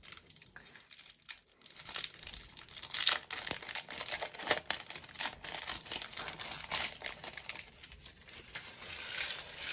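Foil trading-card booster pack being torn open by hand, its wrapper crinkling and crackling irregularly as the cards are pulled out.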